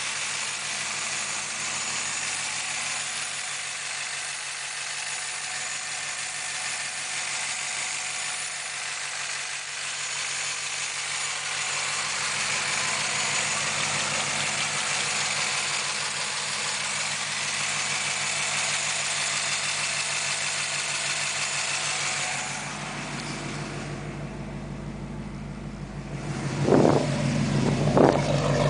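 Jeep Grand Cherokee's 5.3L (bored 5.2L 318 Magnum) V8 with Harland Sharp 1.7 roller rockers and March underdrive pulleys idling steadily, heard close over the engine bay. Near the end the deep exhaust note from the Flowmaster Super 44 grows louder, with two brief loud thumps.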